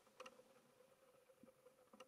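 Near silence: faint room tone with a few soft clicks just after the start.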